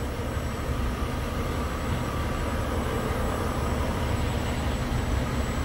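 Semi-truck's diesel engine idling steadily while parked.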